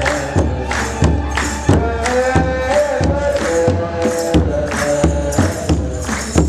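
Kebero drum beating a steady rhythm, roughly two strokes a second, under a group of men chanting a hymn together: Eritrean Orthodox liturgical chant (wereb).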